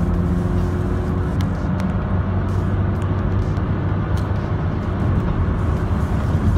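Mercedes Vito 111 CDI's four-cylinder turbodiesel engine running steadily under way, with road and wind noise.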